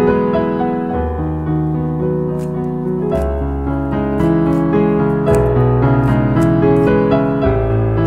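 Background piano music, bass notes changing every second or two.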